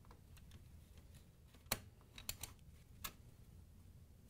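Metal mounting clip clicking against the washer's plastic drain pump and motor plate as it is pushed in, turned and snapped into place to lock the pump to the motor: a sharp click, a quick cluster of lighter clicks, then one more click.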